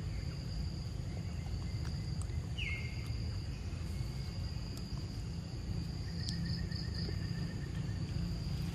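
Forest ambience: insects keep up a steady high trill over a low, even background noise. A short falling chirp comes about three seconds in, and a quick run of four pulsed chirps about six seconds in.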